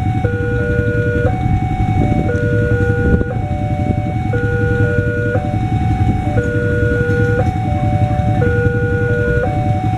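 Electronic level-crossing warning alarm from the crossing's horn loudspeaker: two tones, a lower and a higher, alternating steadily, each held about a second. Underneath is the steady low rumble of idling motorcycle engines waiting at the barrier.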